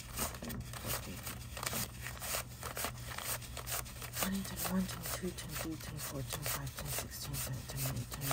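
Paper banknotes, a stack of one-dollar bills, rustling and flicking as they are leafed through and shuffled by hand. The crisp flicks come several a second over a steady low hum.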